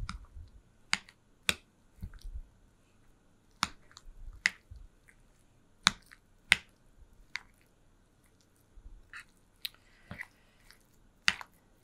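A spoon stirring a thick cream-cheese dip in a mixing bowl. It knocks against the bowl in irregular sharp clicks, roughly one every second, with quiet stirring in between.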